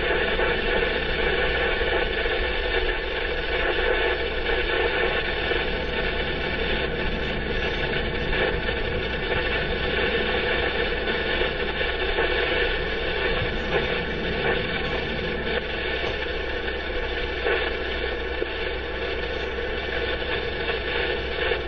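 A steady hum and hiss runs unchanged throughout, with a low rumble underneath and no speech.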